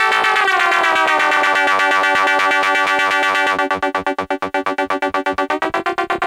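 Stylophone S2 analog synthesizer playing one droning note that slides down in pitch, then holds. About halfway through, the note starts pulsing on and off about eight times a second, and near the end it steps up in pitch.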